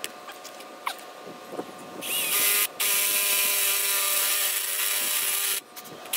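Cordless drill with a 3/8-inch bit boring out pilot holes in the metal plate of a clutch pedal bracket. A few light clicks, then the drill runs steadily from about two seconds in for some three and a half seconds, with a brief stop partway through.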